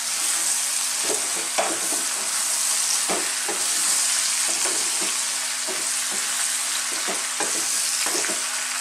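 Chopped white cabbage sizzling in hot oil in a metal pot as it is stirred with a wooden spoon: a steady frying hiss with irregular scrapes and knocks of the spoon against the pot. A low steady hum runs underneath.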